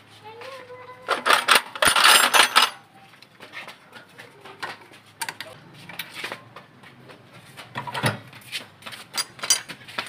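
Metal parts of a partly dismantled small gasoline generator clinking and clattering as they are handled, with a dense rattle of clinks about a second in and scattered single clicks after.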